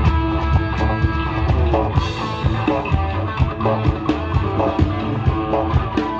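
Rock band playing live, with electric guitar over a drum kit keeping a steady beat and a cymbal crash about two seconds in.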